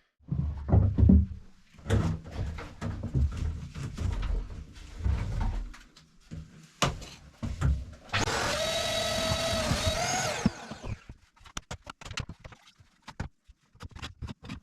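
Knocks and clunks of equipment being handled for several seconds, then a wet/dry vacuum motor runs with a steady whine for about two seconds and shuts off, followed by light clicks. The vacuum is being readied to suck the water out of a leaking boat's bilge.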